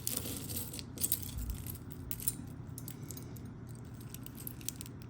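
Small metal costume jewelry pieces clicking and clinking as they are picked through by hand, a scatter of light clicks that is busiest in the first half and thins out later.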